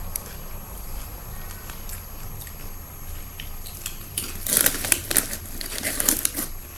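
Plastic rustling and crackling clicks from handling, in a dense burst starting about four seconds in and lasting about two seconds, over a low steady hum.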